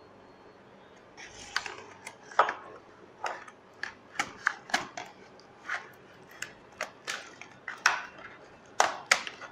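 Keyboard of a Dell Latitude E6410 laptop being pried up with a screwdriver: a run of sharp, irregular plastic clicks and snaps as the tool works along its edge and the keyboard comes free of the chassis. It starts about a second in.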